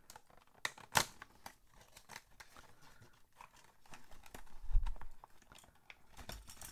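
Cardboard toy box with a clear plastic window being turned over in the hands: scattered rustling, scraping and crinkling of the packaging, with a sharp click about a second in and a low handling bump near five seconds.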